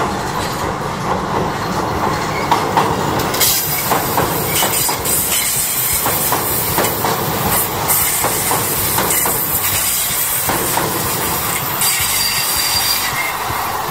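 Tobu 20400 series electric train passing close by, its wheels clacking over the rail joints. A strong high hiss joins the rumble about three seconds in and fades shortly before the end.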